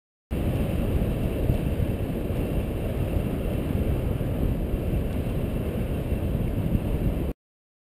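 Steady low wind rumble on the microphone of a camera riding on a bicycle. It cuts in abruptly just after the start and cuts off abruptly near the end.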